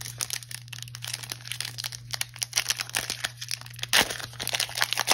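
Plastic foil wrapper of a Prestige football card pack crinkling and crackling as it is torn open and handled, with a louder crackle about four seconds in.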